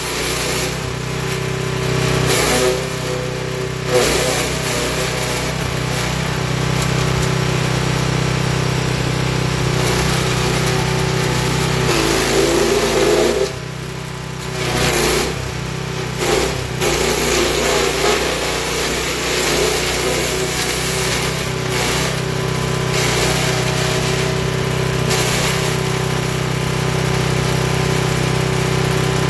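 Forest Master FM6DD wood chipper's 6 hp petrol engine running steadily, with a few brief changes in its sound around the middle.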